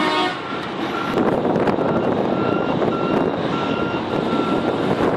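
Reversing alarm on heavy mining equipment beeping repeatedly at one steady pitch over loud engine and machinery noise. A horn-like tone cuts off just after the start.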